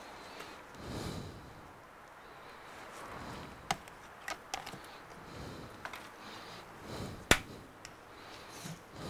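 Handling noise from a Surface Pro 9 tablet as its screen assembly is lifted off the chassis: a few sharp clicks and taps of the glass and frame edges, the loudest about seven seconds in, over soft rubbing of gloved hands.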